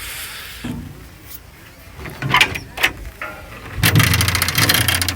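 A few clicks, then a large tractor's diesel engine comes in loud about four seconds in and runs steadily.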